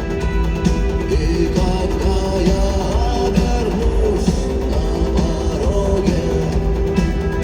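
Rock band playing live in a stadium: steady drums and bass with guitars, and a wavering melody line on top.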